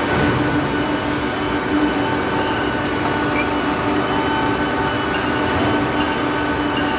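Drill press running steadily while tapping a thread, a continuous machine hum with a steady whine over it.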